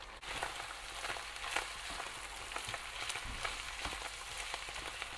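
Ground meat, onion and diced tomatoes sizzling in a frying pan, with a spatula scraping and stirring through them.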